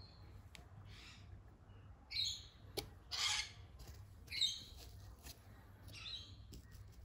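A bird chirping: short high calls about once a second, with a few faint clicks in between.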